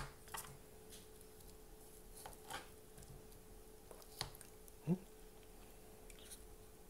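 Quiet room with a faint steady hum, broken by a few soft clicks and taps of wooden chopsticks against a plastic plate, and a brief short voice sound about five seconds in.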